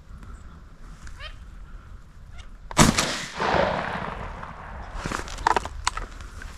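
A shotgun fires one loud blast about three seconds in, its report rolling on and dying away for over a second. A few sharper cracks follow about two seconds later, and faint rising whistles are heard before the shot.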